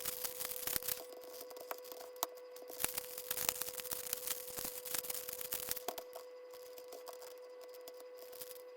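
Plastic puzzle cube being turned by hand, its layers clicking and clacking irregularly; the cube was smashed on a floor and pieced back together, so it turns badly. A faint steady hum runs underneath.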